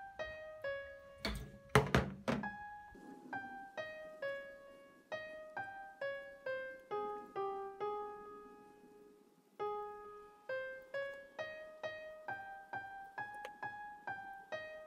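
Background electric-piano music, a light melody of single notes. Early on, a quick cluster of four or five thunks cuts through it, louder than the music.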